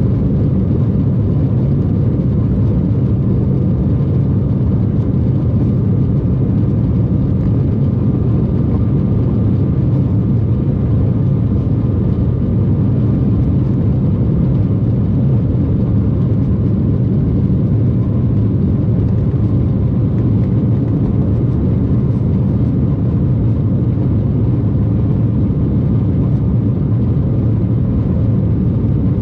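Steady engine and airflow noise heard inside the cabin of an FDA Embraer regional jet, an even low roar with a faint high whine that fades.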